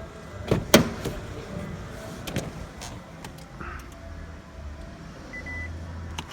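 A Toyota Prius being started: a loud sharp knock under a second in and a few lighter clicks, then a low steady hum comes up about four seconds in and a short high beep sounds near the end.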